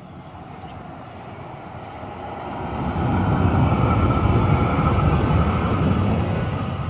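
Düwag N8C articulated tram approaching and passing close by: wheels rumbling on the rails, getting louder and loudest from about three seconds in as it goes past, with a steady whine over the rumble, then starting to fade near the end as it moves away.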